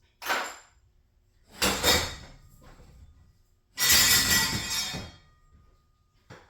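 Three bursts of metallic clattering and scraping, the last the longest and loudest, with a faint ring after them, from hardware or tools being handled during a garage door torsion spring job.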